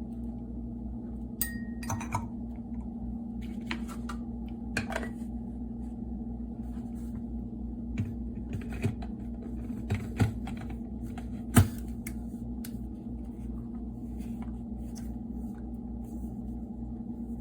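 Scattered light clicks and knocks of a mini food processor's parts being handled and set down, with one sharper knock about two-thirds of the way through, over a steady low hum.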